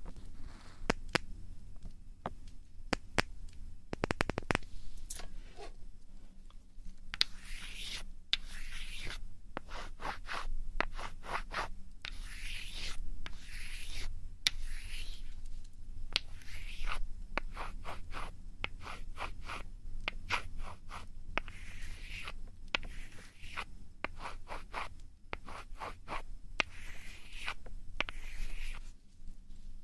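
Close-miked ASMR ear-cleaning and ear-rubbing sounds: repeated scratching and rubbing strokes, each lasting about a second, with many sharp little clicks between them.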